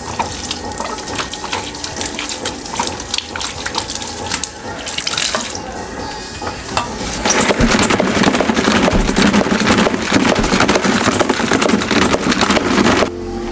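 Water running from a tap into a laundry sink while a mop is rinsed under it, with small knocks of the handle and mop against the sink. From about halfway the sound gets louder and denser: a spin mop being whirled in its bucket to wring it out. It cuts off suddenly near the end.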